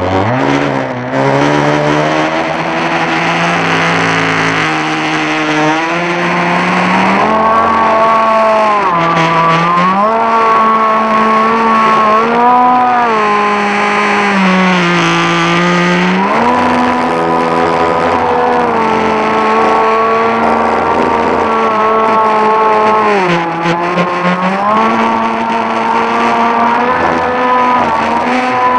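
Arrow Shark RC boat's motor whining at speed, its pitch dipping and climbing again several times as the throttle changes, over the rush and splash of water against the hull, heard from on board.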